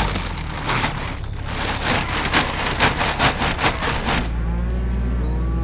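Steady engine hum of a side-by-side utility vehicle. For about the first four seconds it is overlaid by rustling and crackling with a quick run of sharp rattles. Cattle start mooing near the end.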